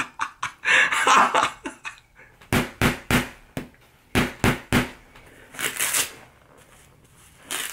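A short laugh, then about seven quick padded thumps of boxing gloves as punches are thrown, followed near the end by a brief rasp of a glove's hook-and-loop wrist strap being pulled open.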